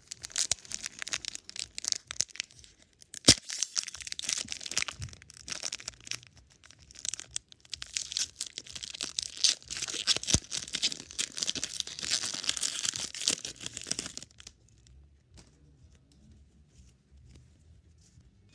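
Foil Pokémon booster pack wrapper being torn open and crinkled, with a sharp snap about three seconds in. The crinkling stops about fourteen seconds in, leaving only faint rustles.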